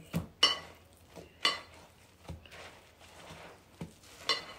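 Short clinks and knocks against a ceramic mixing bowl as hands press and turn a chicken breast in the seasoned flour coating, about six in all, the loudest about half a second in, at about a second and a half, and near the end, with soft rustling of flour between.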